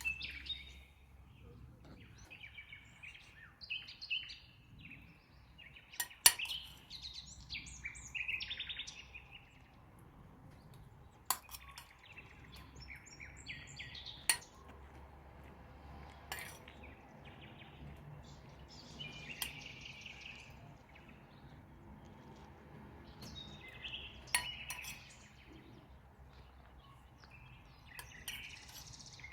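Small birds chirping on and off, with a few sharp clinks.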